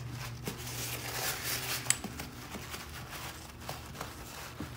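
A paper towel and a plastic-gloved hand rubbing and dabbing along a crown-molding corner, wiping wet sealant into a crack: soft rustling with small scattered clicks and crinkles, over a faint steady hum.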